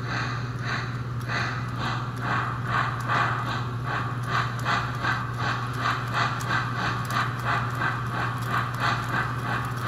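Digitally generated steam-locomotive chuffs for a 65-year-old American Flyer S-gauge locomotive, played through a loudspeaker and timed to the turning drivers. The chuffs come evenly, about two and a half a second, over a steady low hum.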